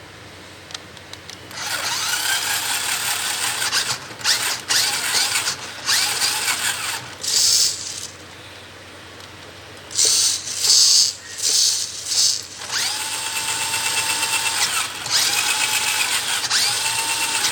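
Toy RC monster truck's electric drive motor and gearbox whirring in bursts as the throttle is worked forward and in reverse, with short blips midway between longer runs near the start and end.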